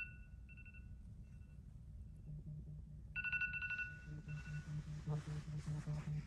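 A trilling two-tone electronic ring sounding in bursts, one starting about three seconds in, with a low regular pulsing underneath from about two seconds in.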